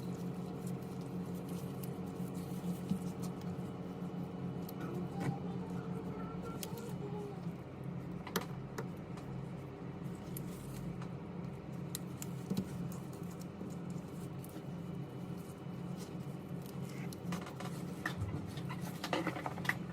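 Scattered light clicks, taps and small scratchy handling noises from small tools and phone parts being worked on a bench, over a steady electrical hum. The clicks come thicker near the end.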